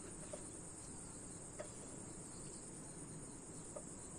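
A faint, steady high hiss, with three soft clicks as a wooden spatula scoops cooked rice from a pressure cooker into a glass bowl.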